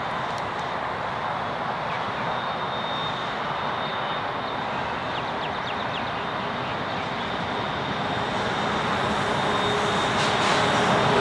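Distant NR-class diesel locomotives heading a freight train, their engine rumble growing louder over the last few seconds as the train approaches.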